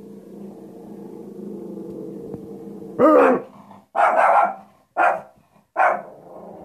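Shih-tzu growling low and steady at her own reflection in a mirror, then barking sharply four times about a second apart, and going back to growling near the end.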